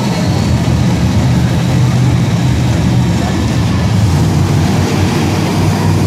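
Monster truck's supercharged V8 engine running as the truck drives across an indoor arena floor, a loud, steady, low-pitched engine note.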